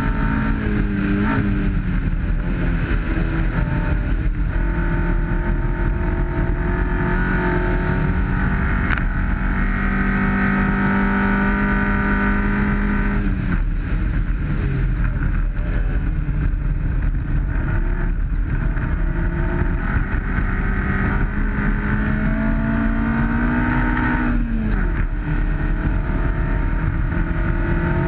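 1991 Honda CRX rally car's twin-cam ZC four-cylinder engine running hard at speed, with rushing gravel road noise underneath. The engine pitch holds steady, drops sharply about halfway through, climbs again, and falls away once more near the end.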